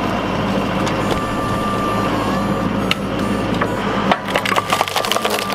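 LS XR4040 compact tractor's engine running steadily, with a steady high whine joining about a second in, as its tractor-mounted hydraulic log splitter forces a log apart on the wedge. About four seconds in, a rapid run of sharp cracks and snaps comes in as a fresh round of wood fibres tear apart on the splitter.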